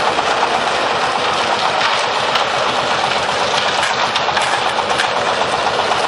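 Concrete mixer running with its drum turning: a steady, loud mechanical running noise that holds even throughout.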